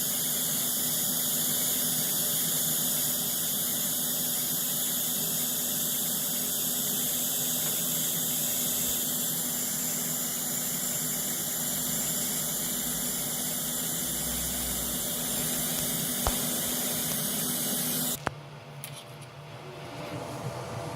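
TIG welding arc hissing and buzzing steadily with a low hum under it, then cutting off abruptly with a click about 18 seconds in as the arc is shut off, leaving a quieter fan-like hum.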